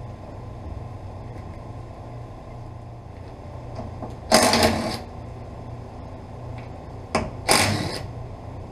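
Cordless ratchet run in two short bursts, about four seconds in and again near the end, working a fastener loose on the excavator's hydraulic filter housing.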